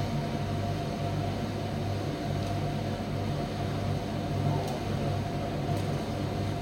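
Primus commercial tumble dryer running: a steady low motor and blower hum with an even airy noise above it.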